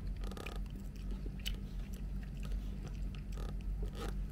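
Close mouth sounds of someone chewing food, with a few short clicks and scrapes of a plastic spoon in a foam takeout box, over a steady low hum.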